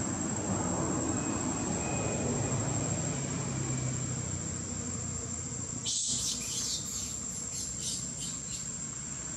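Steady high-pitched drone of insects (crickets or cicadas) over a low background hum. About six seconds in, a quick run of short, sharp high-pitched rasps lasts about three seconds.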